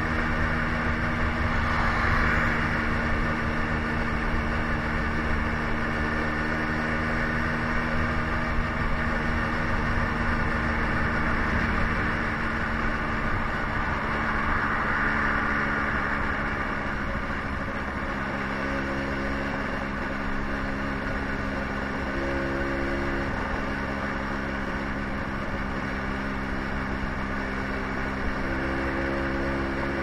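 Suzuki motorbike's small engine running steadily while cruising, with road noise that swells twice.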